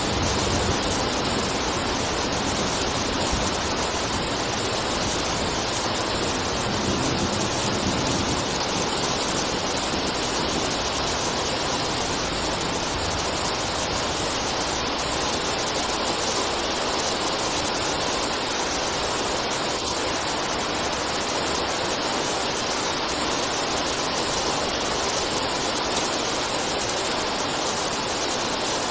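Steady heavy rain, an even unbroken hiss with no drops or thunder standing out.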